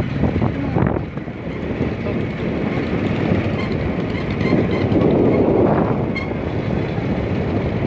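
Steady engine and road noise from a moving vehicle, with wind buffeting the microphone; it swells about five seconds in.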